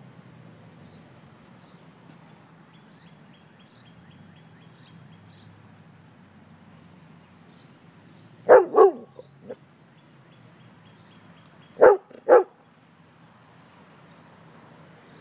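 A dog barking in two short bouts: a couple of loud barks with a smaller one after, about eight and a half seconds in, then two more loud barks about three seconds later.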